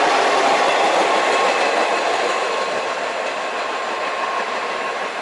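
Vintage New York City subway train rolling away down the track, the running noise of its wheels on the rails fading steadily from about two seconds in as it recedes.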